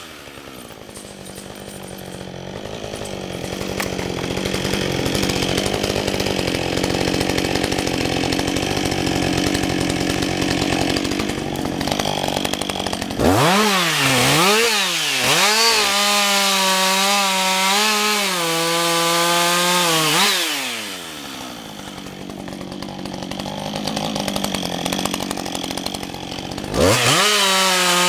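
Husqvarna 562 XP two-stroke chainsaw idling, then throttled up about halfway through for a run of limbing cuts with the revs rising and falling. It drops back to idle and is revved up again near the end.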